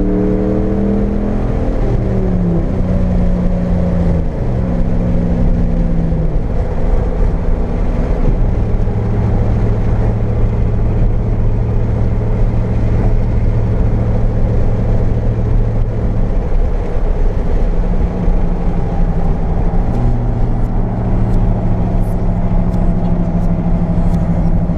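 Ram pickup truck's engine pulling through the gears. Its note climbs and then steps down at each shift in the first several seconds, then settles into a steady drone while cruising, with a couple more changes in pitch later on.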